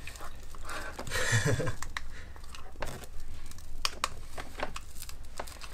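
Hands handling LED light-strip wiring and a small plastic controller against a car's plastic inner door panel: a run of small clicks, taps and crinkly rustles. A brief low voice sound comes about a second in.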